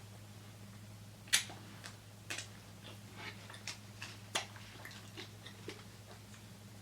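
Close-miked eating: scattered wet mouth clicks and soft chewing sounds, the sharpest about a second and a half in, over a low steady electrical hum.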